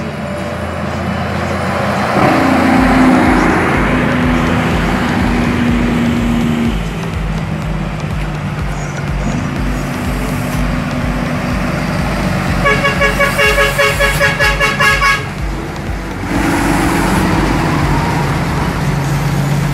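Heavy diesel trucks climbing past in low gear, engines running with a low, even throb. About two-thirds through, a truck horn sounds in a quick run of short toots, about four a second, for a couple of seconds.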